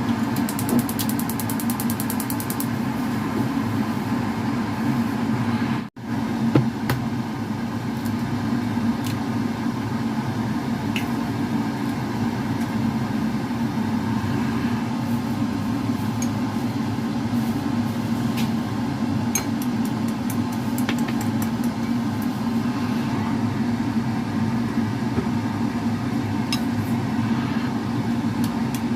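A steady machine hum with occasional light clicks; it drops out for a moment about six seconds in.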